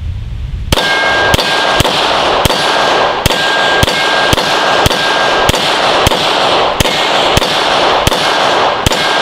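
Canik TP9SFx 9mm pistol fired about fifteen times in steady succession, roughly two shots a second, with steel targets ringing between the shots. The firing stops near the end as the magazine runs empty and the slide locks open.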